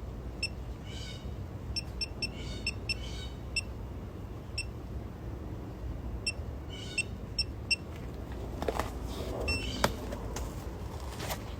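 Short, high electronic beeps, many of them, all at the same pitch and spaced irregularly, over a faint low hum.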